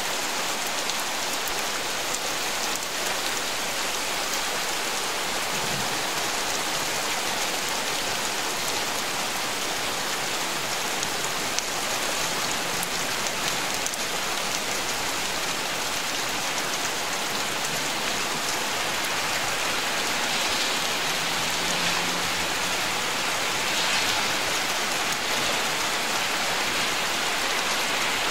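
Thunderstorm rain falling steadily: a dense, even hiss of drops with fine pattering, swelling slightly about twenty seconds in.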